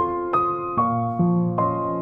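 Background music: a gentle piano or electric-piano interlude, single notes struck about every half second and left to ring.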